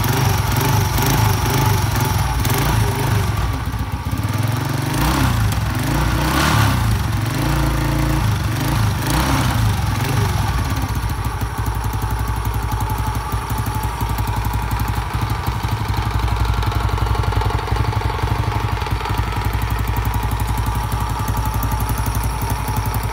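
Honda JL 110cc single-cylinder four-stroke motorcycle engine running on a stand. Its speed rises and falls over the first ten seconds or so, then it settles into a steady idle with an even firing beat.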